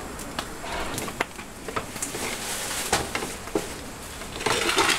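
Irregular light knocks and clicks, one or two a second, over a steady background hum, with louder rustling near the middle and again near the end.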